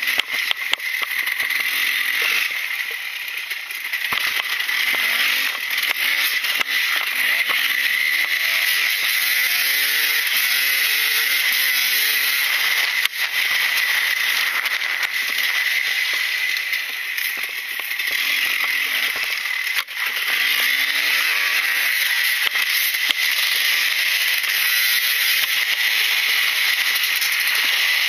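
Husqvarna WR300 single-cylinder two-stroke dirt bike engine running hard, its pitch rising and falling repeatedly as the throttle is worked, with rattling clicks and knocks from the bike over rough grass, heard close up from a camera mounted on the bike.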